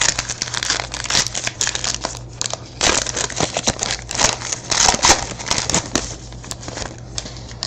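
Crinkling and tearing of a football trading-card pack wrapper being ripped open and handled, an irregular crackly rustle.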